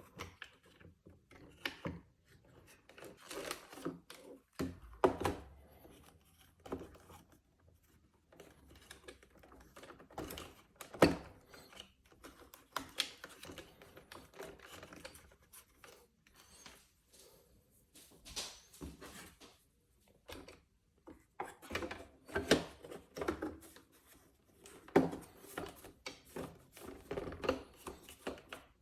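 Irregular clicks, taps and knocks of hands working on a robot vacuum cleaner, connecting and fitting its replacement battery.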